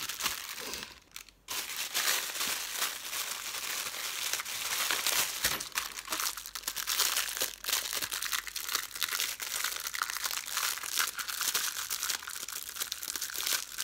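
Thin plastic packaging crinkling and rustling continuously as it is handled to unwrap silicone moulds, after a short lull near the start.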